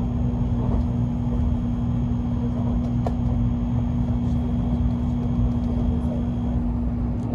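Tokaido Shinkansen train running, heard inside the passenger car: a steady low rumble with a constant hum and a faint high whine that stops near the end.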